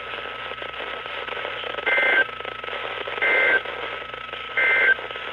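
Emergency Alert System end-of-message code on NOAA Weather Radio: three short bursts of warbling two-pitch data tones about a second and a third apart, over steady radio static. The bursts mark the end of the severe thunderstorm warning broadcast.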